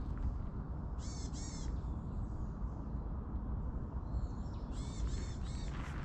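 A crow cawing: two harsh caws about a second in, then a quicker run of three or four near the end, over a steady low rumble.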